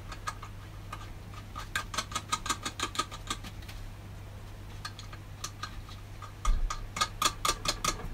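Socket ratchet clicking in two quick runs of about six clicks a second, as nuts on the camshaft bearing caps are run down, with a few single clicks between. A dull knock comes about six and a half seconds in, over a steady low hum.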